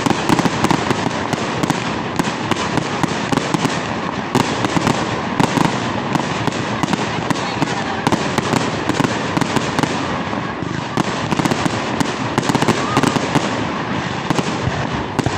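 Fireworks crackling densely and without a break: a rapid, continuous stream of small sharp pops and bangs.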